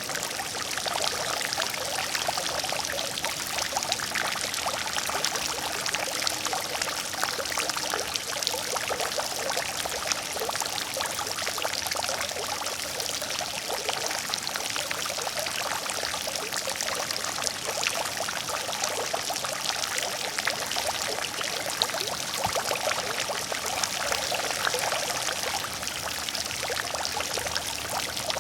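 Water fountain splashing steadily: water falling and spattering into its basin in a continuous dense hiss.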